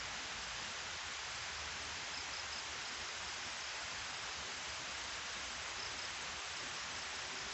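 Steady even hiss of water running out of a weir into a river, with a few faint short high chirps about two seconds and six seconds in.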